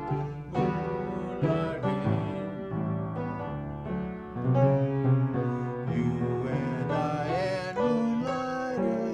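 Instrumental music with piano: a passage of chords and single notes changing about every half second to a second.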